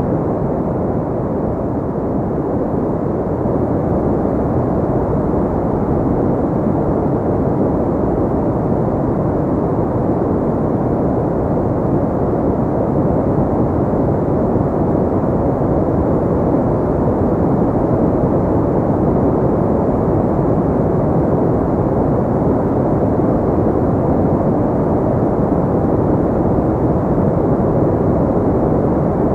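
Steady, deep, muffled noise with no pitch, rhythm or events: a continuous sleep-noise track with little hiss, closer to a low rumble than to bright white noise.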